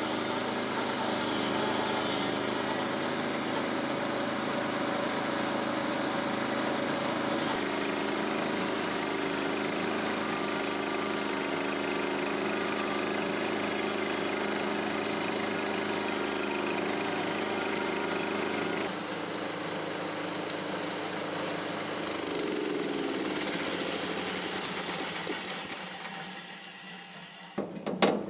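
Small gasoline engine of a bandsaw sawmill running steadily while the mill saws a log. Its tone changes about eight seconds in and again past the middle, and it dies away near the end.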